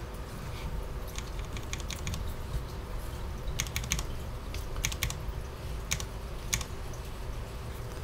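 Key presses on a Cherry MX 10.0N low-profile mechanical keyboard with MX Speed switches: short clusters of sharp taps, a few at a time, with gaps of about a second between.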